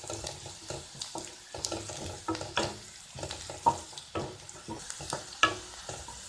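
Wooden spatula stirring and scraping sliced onions frying in coconut oil in a granite-coated nonstick kadai: frequent short scrapes and taps of the spatula on the pan over a steady sizzle.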